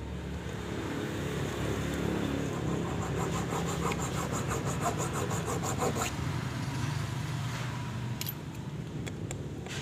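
Hacksaw blade scraping back and forth across an aluminium piston skirt in quick, even strokes, cutting shallow oil-retaining grooves; the strokes stop about six seconds in. An engine runs steadily underneath throughout.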